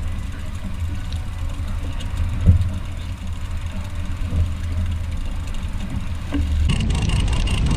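Outboard motor running at slow trolling speed, a steady low drone, with a single knock about two and a half seconds in. Near the end a louder rushing of wind on the microphone comes in.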